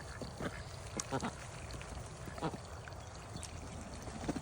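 Ducks and chickens making a few scattered short calls and quacks while feeding.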